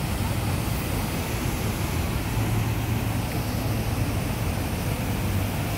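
Whitewater rapids below a waterfall rushing steadily: a constant wash of water noise with a low rumble underneath.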